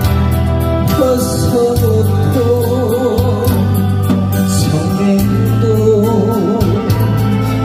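Male trot singer singing into a handheld microphone over musical accompaniment with a steady beat; his voice wavers with vibrato.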